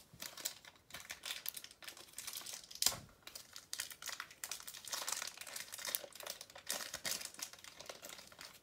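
Clear plastic blister packaging crinkling and crackling as it is handled and worked loose from around an action figure, with one sharper crack about three seconds in.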